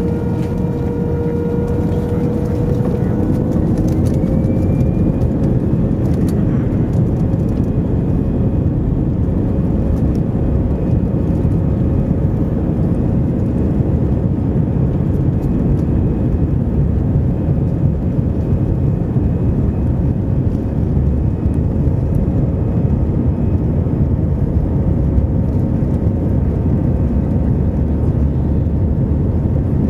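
Cabin noise of an Airbus A319 taxiing, heard from a seat over the wing: a steady rumble under the jet engines' whine. The whine rises slightly in pitch about four seconds in, then holds steady.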